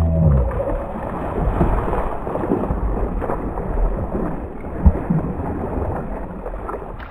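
A large hooked red drum splashing and thrashing at the water's surface right beside a kayak, heard over a steady rushing noise. A single sharp knock comes about five seconds in.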